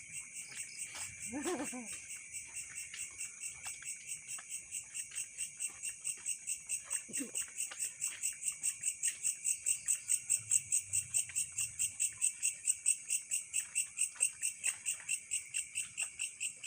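Insect chirping in a steady rapid pulse, about four to five chirps a second, high-pitched, growing louder toward the middle. A short wavering voice-like call sounds about a second and a half in, and a fainter one comes near the middle.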